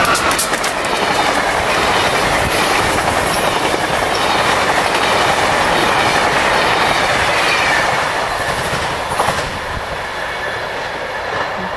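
Amtrak Northeast Regional passenger train passing at speed: a steady rush of wheels clattering on the rails that eases somewhat after about eight seconds as the last cars go by.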